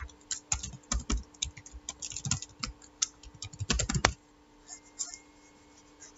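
Typing on a computer keyboard: a quick run of keystrokes for about four seconds, then a few more keystrokes around five seconds in.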